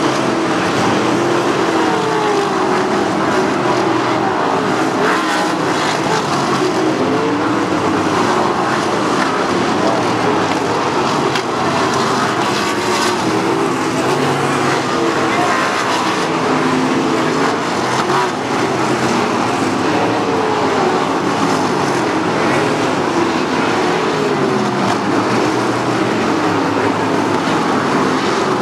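A pack of 360 sprint cars racing, their methanol-fuelled V8 engines running together. Each engine note rises and falls as cars accelerate and lift through the turns.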